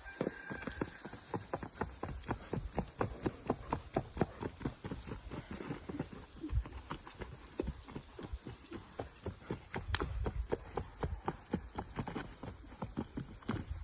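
Horse's hooves striking the ground in the marcha, the Brazilian four-beat gait, in a quick, even clip-clop rhythm.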